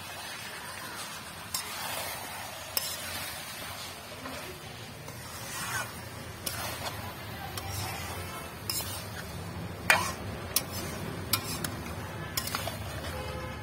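Long metal spoon mixing spiced mutton pieces and grated papaya in an aluminium kadai, with sharp clinks and scrapes against the pan every second or so, the loudest about ten seconds in.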